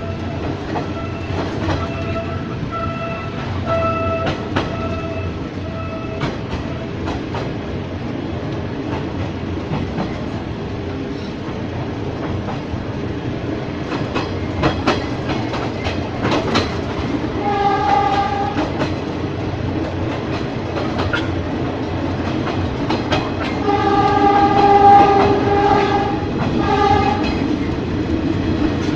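Ex-JR 203 series electric multiple unit running on the rails, a steady rumble with rail-joint clicks. A horn sounds in short blasts twice, briefly about two thirds of the way in and louder near the end, and a row of short repeated beeps sounds in the first few seconds.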